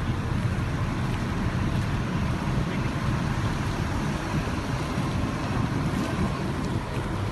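Steady low rumble of outdoor background noise with a hiss above it, unbroken throughout.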